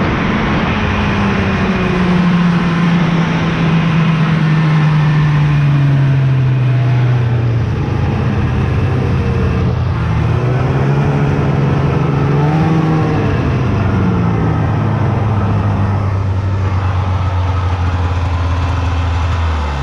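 A motor vehicle's engine running while under way. Its pitch sinks slowly, rises and dips again about two-thirds of the way through, then holds steady. It cuts off abruptly at the very end.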